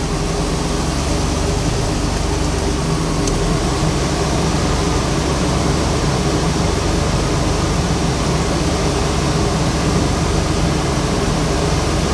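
DeLorean DMC-12's PRV V6 idling steadily with the air conditioning switched on. The idle speed control has raised the engine to about 950 RPM, a 100 RPM bump to carry the A/C load.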